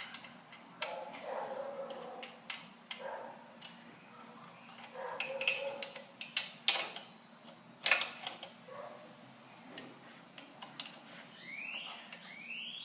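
Hand tools working on motorcycle front-end bolts: scattered metallic clicks and knocks from an Allen key and wrench on bolts torqued to 28 foot-pounds, with two short rising squeaks near the end.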